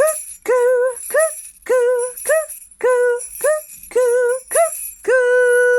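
A woman's voice singing "cuckoo" five times, each call two short notes opening with a quick upward slide, the last one held long, as the cuckoo clock strikes five o'clock in the nursery song. Jingle bells shake throughout.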